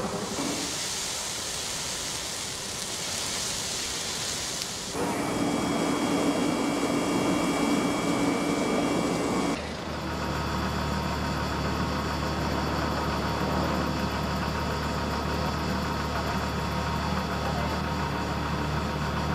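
Steady hissing noise, then an engine running with a steady low drone. Each changes suddenly at a cut, about 5 s and about 10 s in.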